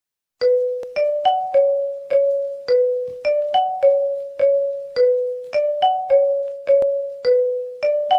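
Ringtone melody of bell-like, mallet-struck electronic notes, starting about half a second in: a short five-note phrase that repeats every couple of seconds.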